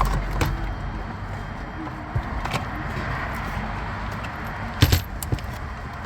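A few sharp plastic clicks and rattles from handling the shifter console trim and unplugging its wiring connectors, the loudest a quick double click near the end.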